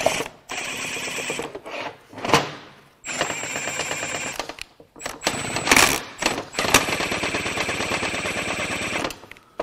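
Cordless impact wrench hammering in bursts as it runs bolts out of an engine oil pump. The longest run, about two seconds, comes near the end, with a couple of single sharp knocks between the runs.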